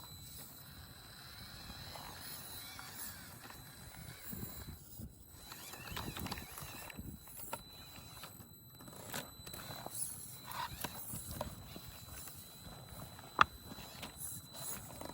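Redcat Ascent-18 1:18 brushed electric RC rock crawler driving over rough ground: irregular clicks and clatter from its tyres and chassis, with one sharp knock about thirteen seconds in.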